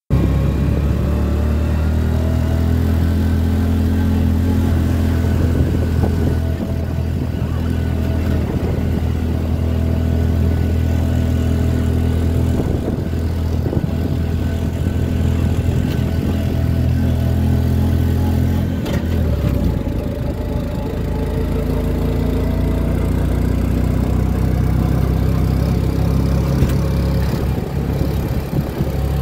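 Tuk tuk's small engine running steadily as it drives along, heard from its open-sided passenger seat; its pitch drops about two-thirds of the way through.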